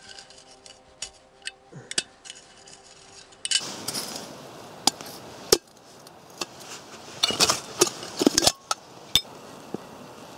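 Small blackened metal camping kettle being handled, its lid and wire handle giving a series of sharp clinks and knocks, with a short scraping rustle a few seconds in and a quick run of clinks after the middle.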